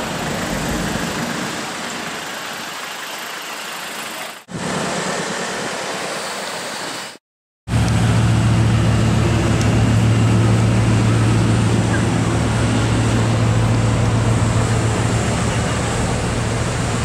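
Street and traffic noise close to a Bugatti Veyron for about seven seconds, with a brief drop partway through. After a half-second of silence comes a louder, steady low drone: a Bugatti Veyron Super Sport's quad-turbo W16 engine idling.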